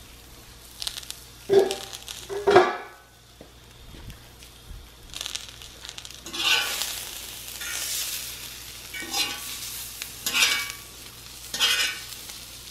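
Cubed beaver loin with diced green pepper and onion sizzling on a hot flat-top griddle. A metal fork scrapes across the griddle in a series of short strokes, most of them in the second half, as the vegetables are pushed onto the meat.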